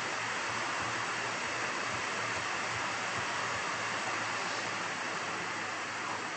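Steady, even background hiss: room tone picked up by the recording microphone, with no other sound.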